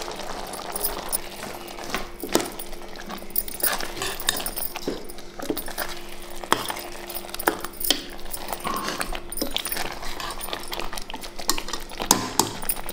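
Steel ladle stirring thick chicken masala in an aluminium pressure cooker, clinking and scraping against the pot at irregular moments.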